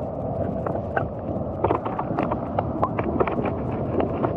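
Water noise picked up by a GoPro Hero9 held underwater: a muffled, steady low rumble with scattered small clicks and knocks.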